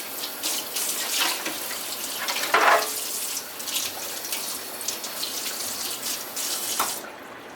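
Water running from a tap and splashing as an RC truck is washed down with a wet sponge. The running water stops about seven seconds in.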